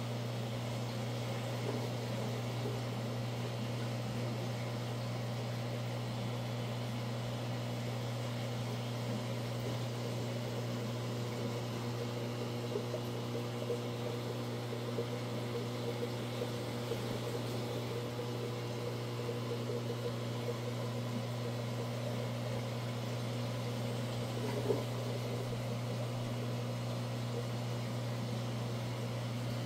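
Steady low hum with a light hiss from aquarium equipment such as a filter or pump running, with one brief click about 25 seconds in.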